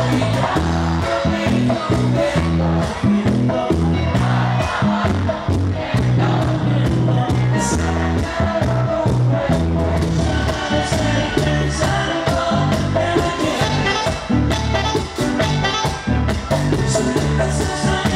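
Live bachata band playing: guitars over a steady bass line with quick, busy percussion, with some singing.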